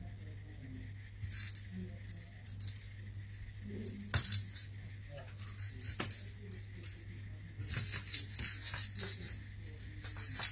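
A small jingle bell jingling as a paper dragon puppet's head knocks it about: short shakes about a second in and again around four seconds, a couple of sharp clicks, then near-continuous jingling from about eight seconds on. A faint steady low hum runs underneath.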